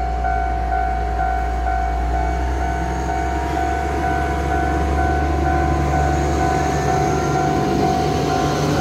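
Small diesel shunting locomotive rumbling as it rolls slowly past, getting a little louder near the end. Under it runs the level-crossing warning signal: a steady tone with a higher ding pulsing about twice a second.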